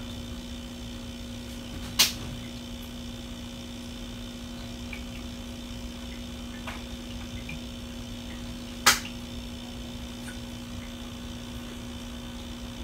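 Low steady hum with a faint higher whine, broken by two sharp clicks, one about two seconds in and one about nine seconds in.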